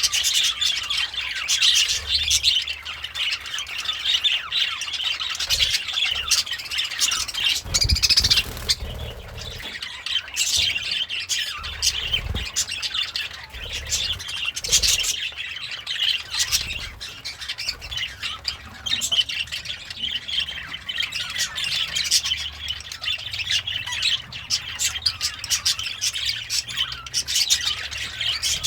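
Budgerigars chirping and chattering continuously in quick, sharp warbles, with a couple of low knocks about eight and twelve seconds in.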